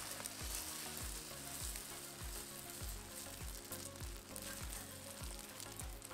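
Beaten egg with a paratha laid on it, frying in oil on a tawa and sizzling steadily.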